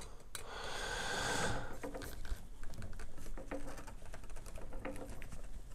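Hands handling and fitting parts of a headset stand together: a scraping rustle for about a second, then a string of small clicks and taps.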